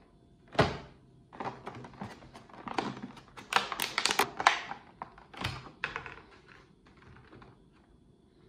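Stiff clear plastic clamshell food container being handled and snapped open: a knock about half a second in, then a run of crackles and clicks from the plastic, loudest in the middle and thinning out near the end.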